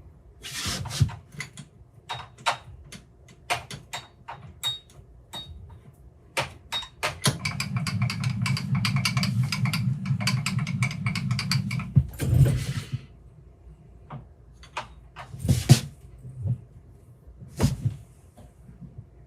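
Metal tools and machine parts clinking and knocking as a rotary table is set up on a pantograph mill, with a small motor running for about five seconds in the middle.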